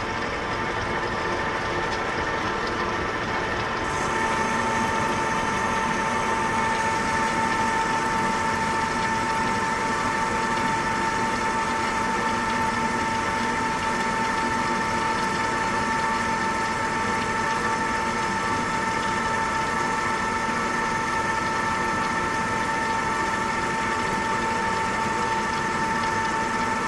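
Clausing Metosa 15x45 metal lathe running under power while taking a cut of about 125 thousandths, a steady machine hum made of several tones. About four seconds in it grows a little louder and a steady whine joins it.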